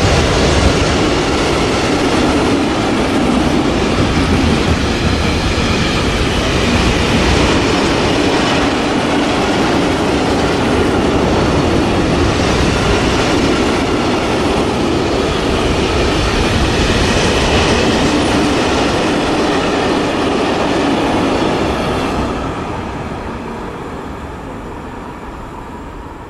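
Freight train of covered grain hopper wagons rolling past at speed, the steady running noise of steel wheels on the rails. The sound starts to fade about twenty-two seconds in as the last wagons go by.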